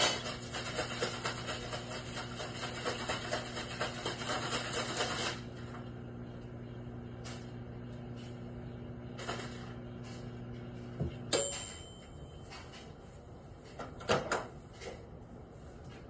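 Microwave oven running with a steady hum while the diet cola inside crackles and spits for the first five seconds. About eleven seconds in the hum stops with a click, followed by a short high beep. A few clicks near the end come as the microwave door is handled.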